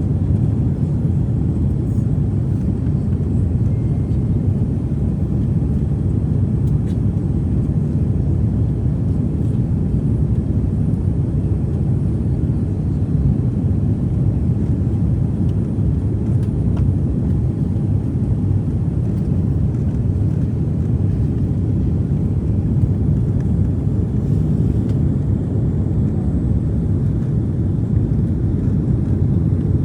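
Airliner cabin noise heard from a window seat: a steady low rumble of engines and airflow, unchanging throughout.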